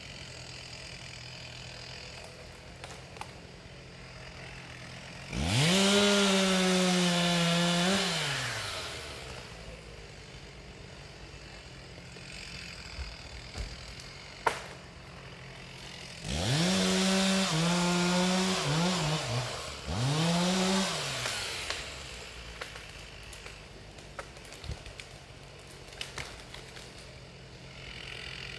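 Chainsaw idling with a low hum, throttled up to full revs twice for about three seconds each, about 5 s and 16 s in, then blipped a few more times. Each time the pitch winds back down to idle. A single sharp click sounds about halfway through.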